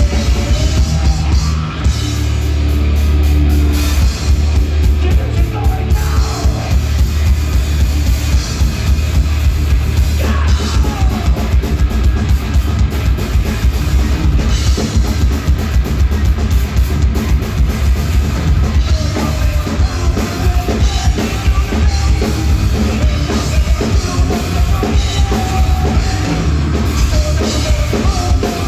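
Thrash metal band playing live, up close: fast distorted electric guitars over loud, busy drums and bass drum, with guitar notes sliding in pitch here and there.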